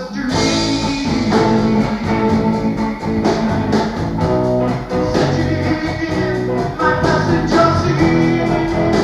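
Late-1970s rock and roll band playing: guitar chords over a steady drum beat.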